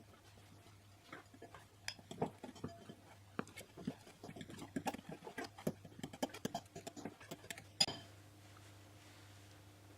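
A spoon clinking and scraping against a mixing bowl as flour is worked into cookie dough: quick irregular taps for several seconds, ending with one sharper clink. Then just a faint steady hum.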